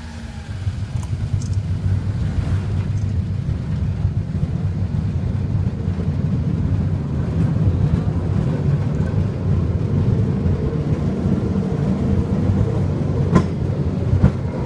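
Takachiho Amaterasu Railway's small open-air tourist rail cart pulling away and running along the track, a steady low rumble of engine and wheels on rail. It builds over the first couple of seconds as it gets under way. A couple of sharp clicks come near the end.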